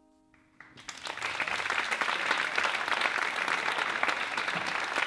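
Audience applauding: a few scattered claps about half a second in, swelling within a second into steady, dense clapping.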